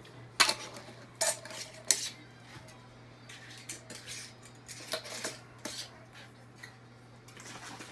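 Lids being put on the filled containers of overnight oats, clicking and clinking against them: a run of sharp clicks in the first two seconds, then scattered lighter knocks.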